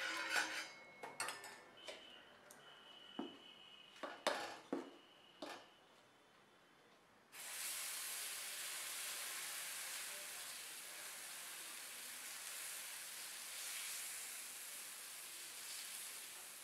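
Steel spatula scraping and clinking on an oiled tawa in short, separate strokes. About seven seconds in, adai batter lands on the hot tawa and a steady sizzle starts suddenly, carrying on while the batter is spread.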